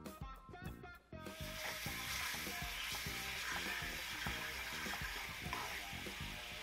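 Soy sauce, mirin and syrup glaze bubbling and sizzling as it reduces in a nonstick frying pan, stirred with a wooden spatula; the sizzle cuts in about a second in and then holds steady. Light background music plays under it.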